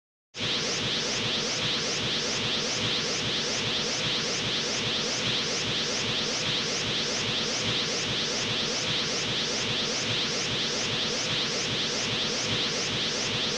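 Dragon Ball Z energy sound effect: a steady rushing, crackling rumble with rapid repeating rising swishes, about three a second, starting abruptly just after the beginning.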